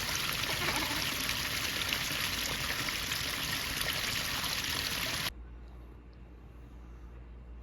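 Mountain stream water rushing over rocks, a steady noise that cuts off suddenly about five seconds in, leaving only a faint low hum.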